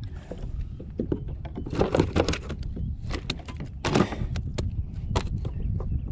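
A sea robin being unhooked by hand on a plastic sit-on-top kayak: a run of knocks, taps and thumps of hands, fish and jig against the hull, loudest about two and four seconds in, over a steady low rumble.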